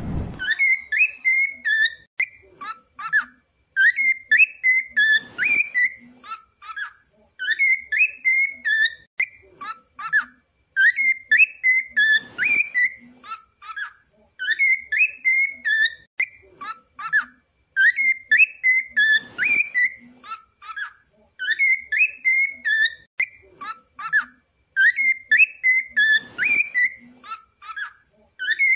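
Cockatiel whistling its song: a short warbling phrase of rising and falling notes, repeated about every three and a half seconds. A faint steady high whine runs underneath.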